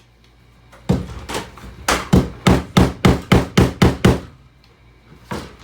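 A hammer beating on a CD player stereo. One blow lands about a second in, then a quick run of about eight strikes, roughly four a second.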